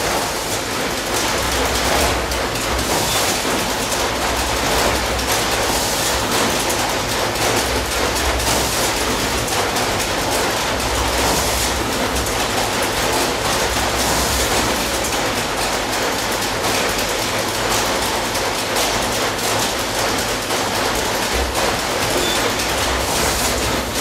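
Chequebook production line running: a dense, rapid mechanical clatter of paper-handling machinery, with a low hum that swells and fades.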